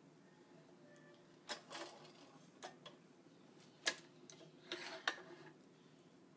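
Several sharp clicks and taps from hands working the taut strings and clamps of a two-point badminton stringing machine, the loudest about four seconds in and a few close together around five seconds.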